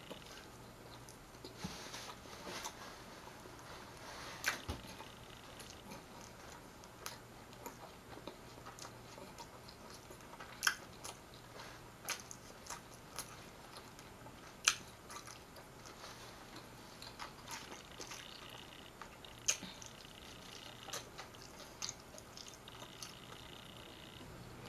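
Quiet chewing of a mouthful of McDonald's bacon double quarter pounder, with scattered soft mouth clicks and smacks.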